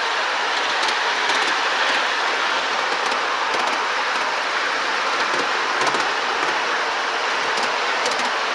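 Ride-on miniature steam railway train running along its track: a steady rushing running noise, with a few faint clicks scattered through it.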